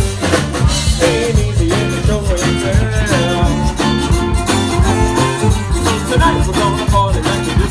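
Live band playing with electric guitars and a drum kit: a steady beat under a melody line that bends in pitch.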